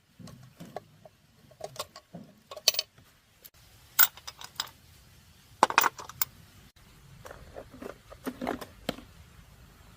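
Metal tools and small engine parts clinking and knocking as they are handled, a dozen or so irregular sharp clinks, the loudest about four and six seconds in.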